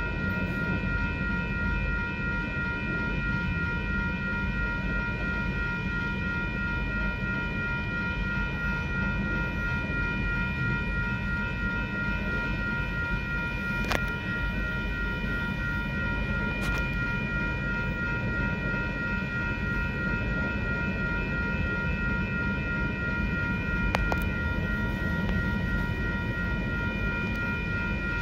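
Union Pacific freight train rolling past a grade crossing: a steady low rumble of cars on the rails, with several steady high ringing tones held over it and a few sharp clanks.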